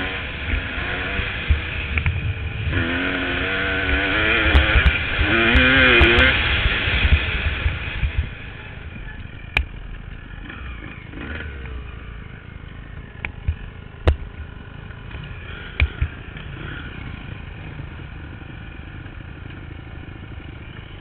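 2002 Honda CR250 single-cylinder two-stroke dirt bike engine with an FMF Gnarly expansion pipe, revving up and down while riding. About eight seconds in it drops to a quieter steady run, with a few sharp knocks.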